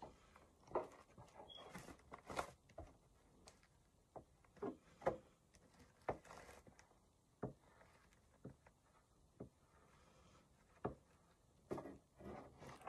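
Faint, irregular small taps and scrapes of a soldering iron tip and hands working along the seam of a 3D-printed PLA+ helmet, welding the two halves together.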